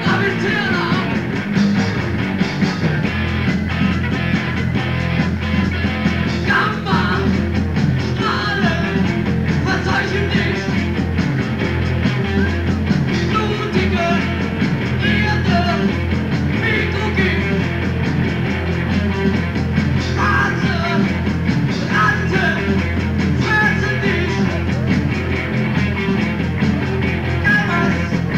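Live rock band playing, with a singer, recorded on cassette tape at an open-air show: murky, rough sound with a steady low hum from a generator running underneath.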